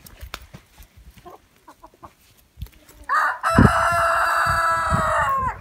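Rooster crowing once: a long call starting about three seconds in and held for over two seconds, dropping in pitch as it ends. A few soft hen clucks come before it.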